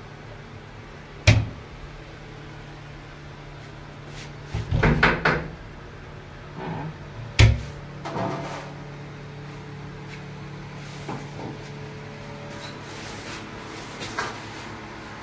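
Wooden particleboard cabinet being handled. There is a sharp knock about a second in, a quick cluster of bumps and rattles a few seconds later, another sharp knock about halfway, and a few lighter taps after that, over a steady low hum.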